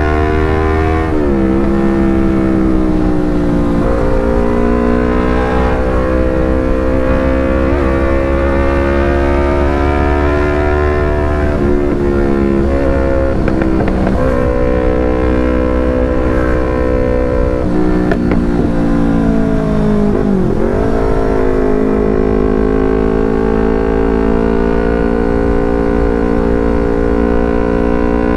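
Yamaha R25 parallel-twin engine running through a Proliner TR1R short aftermarket slip-on exhaust. The exhaust note holds steady for a few seconds at a time and shifts in pitch several times, with a deeper drop and recovery about 20 seconds in, as the throttle and revs change.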